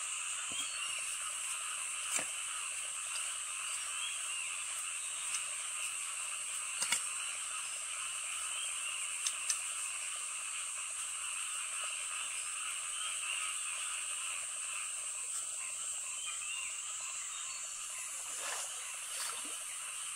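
Steady chorus of calling frogs, a continuous shimmering background with a few faint sharp clicks scattered through it.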